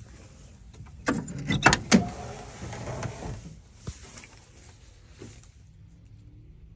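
The old steel driver's door of a 1967 Chevelle being pulled open. Several sharp clicks and clunks from the latch and hinges come about a second in, followed by a second or so of softer scraping noise.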